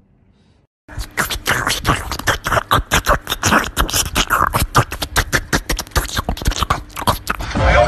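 A fast, dense percussive rhythm of sharp clicks and beats, many a second, starting suddenly about a second in.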